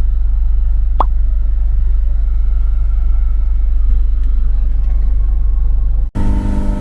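Steady deep vehicle rumble, with one short click about a second in.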